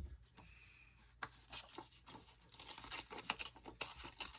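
Paper being handled at a craft table: a run of short, scratchy rustles and scrapes, sparse at first and busier in the second half.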